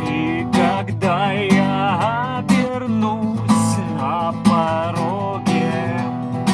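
Acoustic guitar strummed in a steady rhythm of about two strokes a second, with a wavering melody line over the chords for a few seconds at a time.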